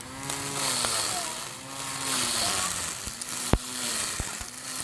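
Small electric string trimmer cutting grass, its motor whine rising and falling in pitch about once a second. A few sharp clicks in the second half, the loudest about three and a half seconds in, as the line strikes the stone curb.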